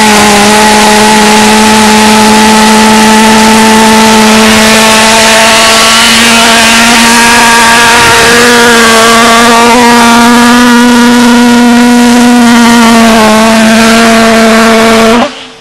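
Model pulsejet engine on an RC boat running flat out: a very loud, steady buzzing drone on one pitch with a slight waver, which cuts off abruptly near the end.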